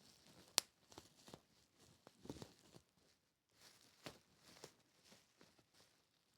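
Bubble wrap crinkling, with scattered sharp pops, the loudest about half a second in.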